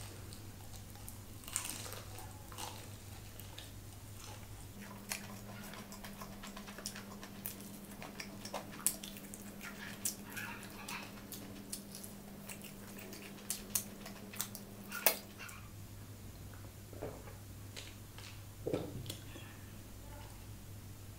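Close-up eating of crispy fried chicken: irregular crunching bites and chewing sounds, with a faint steady low hum underneath.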